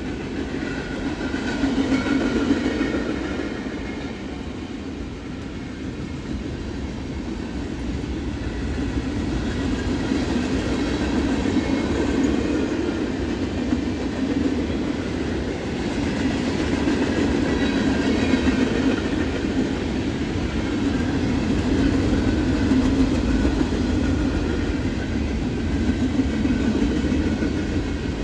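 Norfolk Southern freight train's cars rolling past on the rails, a steady noise that swells and eases a little.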